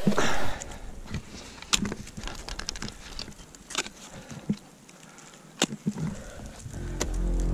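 A short loud whoosh, then ice axe picks being swung and planted into firm, steep snow: a series of irregular crunching strikes about a second apart. Music comes in near the end.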